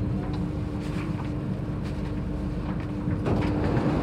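Inside an Alstom Metropolitan C830C metro car standing at a station: a steady electrical hum over a low rumble. About three seconds in, the passenger door slides open and the sound grows louder and noisier.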